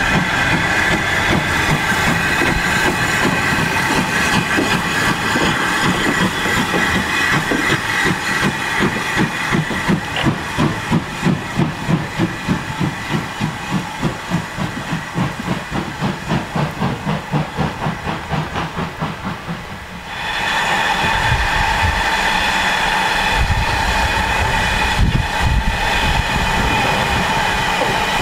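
LMS Ivatt 2MT tank steam locomotive working under steam: steady hiss with rhythmic exhaust beats at about two a second. About two-thirds of the way in the sound changes abruptly to a steadier hiss of steam with a low rumble and a few knocks.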